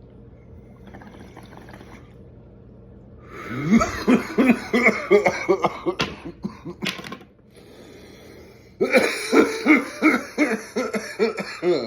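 A man coughing hard in two fits of rapid, repeated coughs, the first about three seconds in and the second near the end, after inhaling cannabis smoke.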